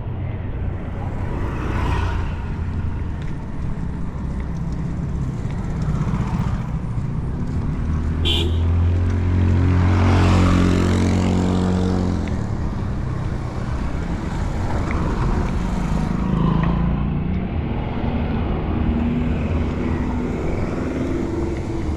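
Road traffic over a steady low rumble. About halfway through, a motor vehicle passes; its engine swells and then fades. A short high tone sounds just before it.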